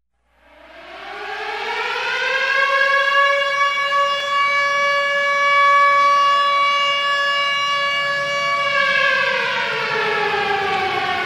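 An air-raid siren winds up to a steady wail, holds it, and then winds down, falling in pitch over the last few seconds.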